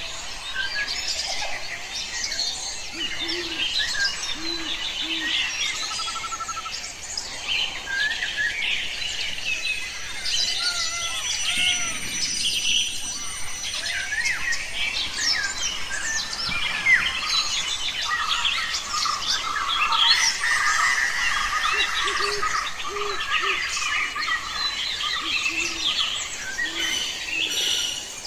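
Spotted dove cooing in short runs of low, soft notes, three times, over continuous high chirping and twittering of small birds.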